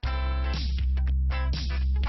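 Background music with a heavy, steady bass and a regular beat.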